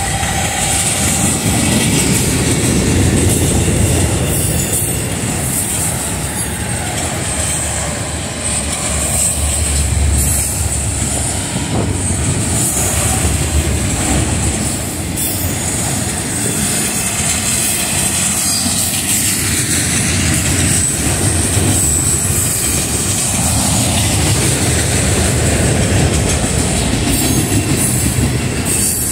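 Freight cars rolling past at trackside: a steady heavy rumble of steel wheels on rail, with the rhythmic clatter of wheels over rail joints.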